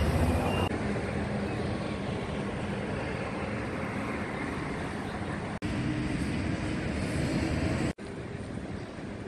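Steady city traffic noise, a continuous hum of passing vehicles, with the background breaking off abruptly a few times.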